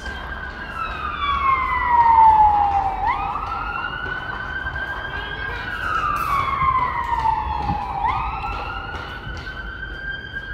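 Emergency vehicle siren on a slow wail: each cycle jumps up quickly, then slides slowly down over about four seconds, repeating about every five seconds, with a low rumble underneath.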